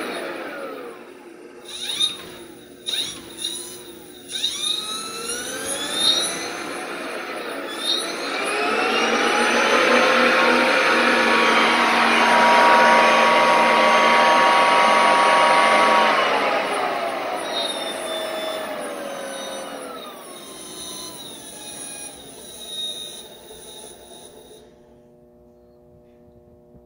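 A 28 V 100 A automotive alternator converted to a brushless motor, driven by a hobby ESC, whining as it spins. Its pitch slides down and up as the speed is changed, with a few sharp knocks in the first several seconds. It then spins up to a steady, loudest high-speed whine in the middle, winds down with falling pitch, and stops near the end.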